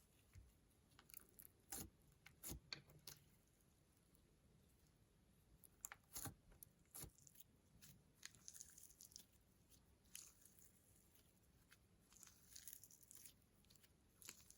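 Faint scattered clicks and crackles of slime and makeup being handled and mixed by hand, with a few sharper clicks and softer crackling near the end.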